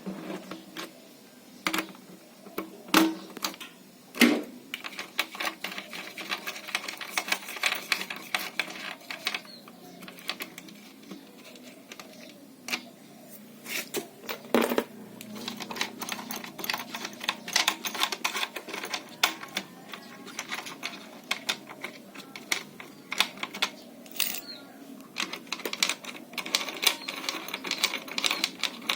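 Rapid, dense clicking and tapping from hand work on a water heater being taken apart, with a few sharper knocks about 3, 4 and 15 seconds in.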